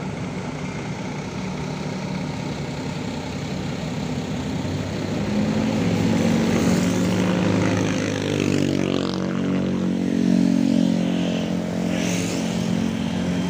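Tour bus diesel engine running close by in slow, queuing traffic, its low steady note growing louder about five seconds in, over general traffic noise.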